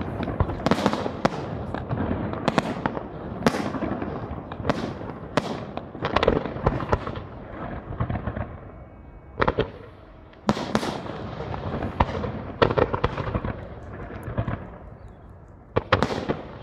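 Aerial firework shells bursting in quick succession, each sharp report trailing off in an echo. Just past halfway there is a brief quieter lull, then the bursts pick up again.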